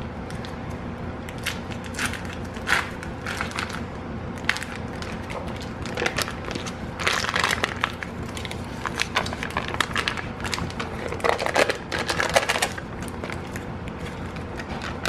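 Foil wrapper of a block of cream cheese crinkling and crackling as it is peeled open and the cheese squeezed out of it into a plastic jug. The crinkling comes in irregular spells, thickest from about seven to twelve seconds in.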